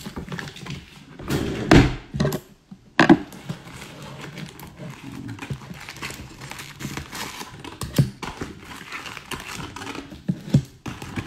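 A cardboard hockey-card box being opened and its foil card packs handled and set down. There are a couple of thumps in the first few seconds, then a steady crinkling rustle of foil wrappers, with another knock about eight seconds in.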